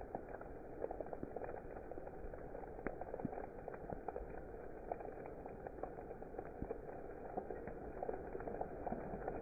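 Steady rain, a continuous hiss with many scattered drop impacts ticking through it.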